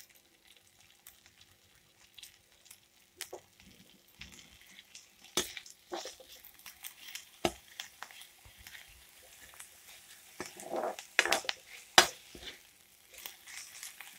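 Chopped onions and green chillies frying in mustard oil in a kadai, with a faint sizzle and the clicks and scrapes of a metal spoon stirring against the pan, the sharpest in a cluster about 11 to 12 seconds in.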